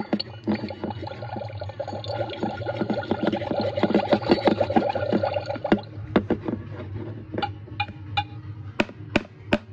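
Rapid bubbling and gurgling from a toy magic mixing cauldron while its wand stirs inside it, thinning out to a few separate sharp clicks or taps in the last few seconds.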